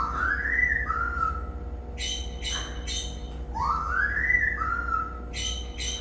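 A man whistling two swooping notes that rise and then fall, about three and a half seconds apart. Quick runs of short, high bird chirps come between and after them.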